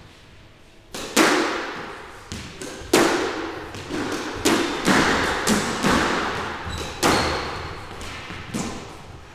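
Squash rally: the ball cracking off rackets and hitting the court walls, a run of sharp knocks with an echoing tail, about one every half second to a second, starting about a second in.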